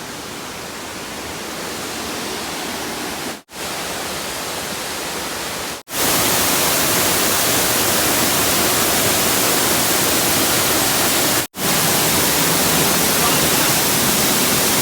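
Dry Falls, a 65-foot waterfall, roaring: the steady rush of falling water. It cuts out briefly three times and is noticeably louder after the second break, about six seconds in.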